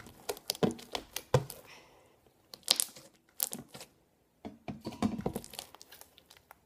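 Sticky, wet slime squeezed and pulled apart by hand, giving quick crackles and pops in three bursts.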